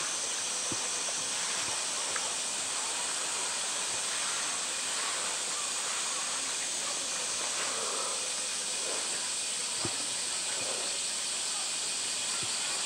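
Steady high hiss of water, with light splashing and a couple of soft knocks from a polar bear playing with a plastic barrel in its pool.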